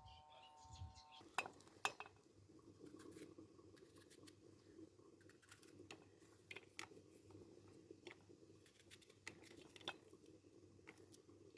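Scattered light clinks and taps of cooking utensils and dishes, over a faint steady low hum that starts about a second in.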